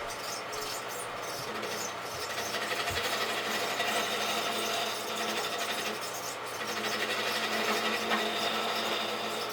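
Rockwell wood lathe running steadily while a turning chisel cuts the spinning wooden bat blank, the cutting noise swelling and easing twice.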